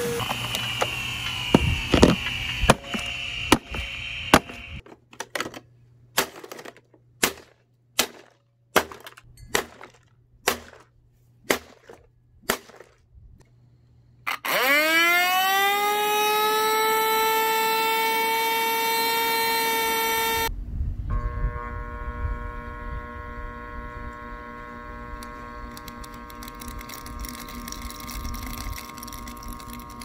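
Bissell Zing canister vacuum being smashed: a high motor whine with hard knocks at first, then about ten sharp blows on its housing roughly a second apart. About 14 s in, its exposed motor starts and spins up in a rising whine to a steady pitch. About 20 s in, the sound changes to a steady multi-tone running hum over a low rumble.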